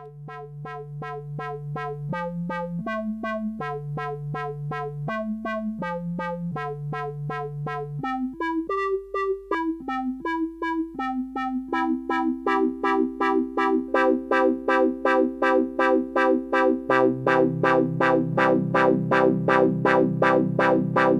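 Yamaha Electone A-55N organ playing on its lower keyboard with the Rhythmic Wah effect, produced by its IG02611 filter chip: each note pulses evenly, about three times a second. It starts as a simple line of changing notes, then moves to held chords that grow fuller and louder in the second half.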